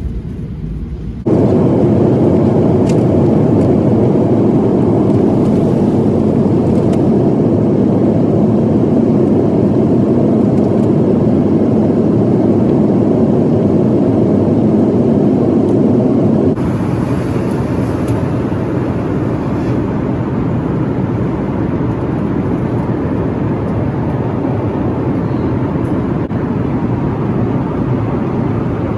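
Boeing 737-800 jet engine and airflow noise heard inside the passenger cabin: a steady, loud, low noise. It jumps louder about a second in and drops a little just past the middle, with abrupt changes.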